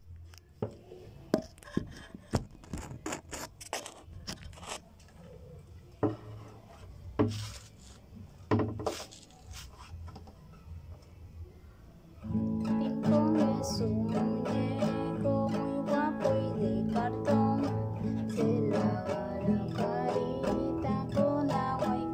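Scattered clicks and knocks of a phone being handled and set in place, then from about twelve seconds in a classical guitar strummed in a steady, even rhythm, playing chords.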